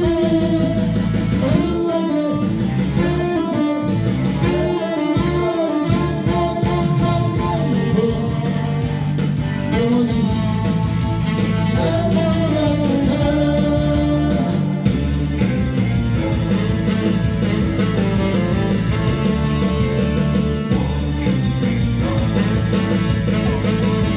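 Saxophone playing a melody with vibrato and bends over an accompaniment with guitar.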